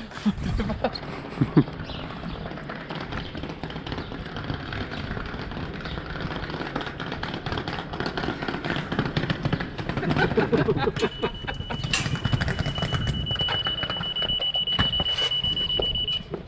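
Steady rumbling, clattering background noise. About eleven seconds in, a steady high-pitched electronic alarm tone starts and holds for about five seconds before cutting off.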